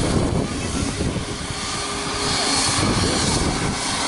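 Boeing 737 MAX 8's CFM LEAP-1B turbofan engines running steadily as the airliner taxis and turns at the runway end.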